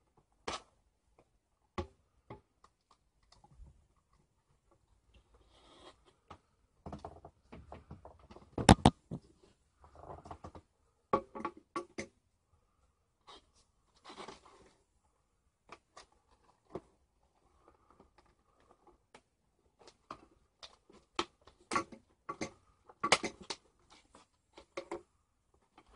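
Boglin toy packaging being worked at by hand, with the small plastic piece that holds the toy's crate being pried loose: scattered plastic clicks, crackles and rustles in bursts, with a sharper knock about nine seconds in.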